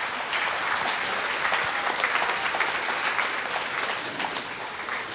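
Audience applauding, the clapping thinning out and fading away toward the end.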